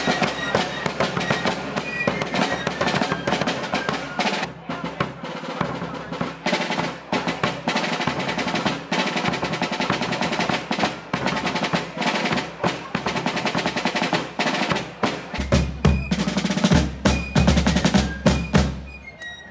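Snare drums of a colonial fife and drum corps playing a rapid cadence with rolls, over bass drum beats. In the last few seconds the bass drum strokes come through much heavier.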